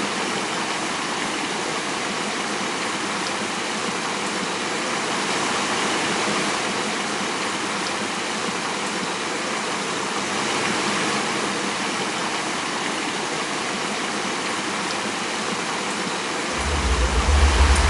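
Stream and small waterfall rushing steadily. Near the end a deep low rumble comes in on top.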